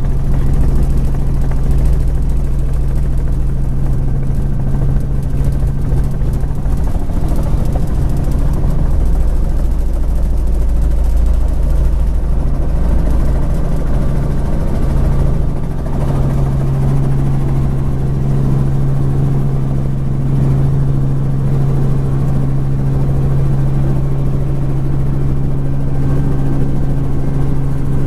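Helicopter engine and rotor running steadily, heard loud and close as if from on board. About halfway through the deepest rumble drops away and a steady hum carries on.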